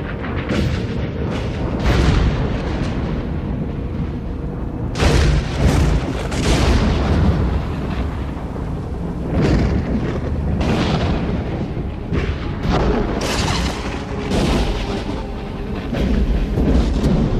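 Thunderstorm thunder: a continuous low rolling rumble broken by about a dozen sharp cracks, the strongest around five to six seconds in.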